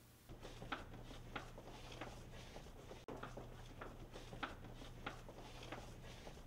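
Footsteps on a hard floor, a step every half second or so, over a low steady hum.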